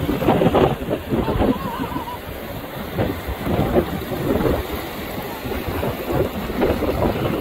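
Wind buffeting the microphone in irregular gusts at the shoreline.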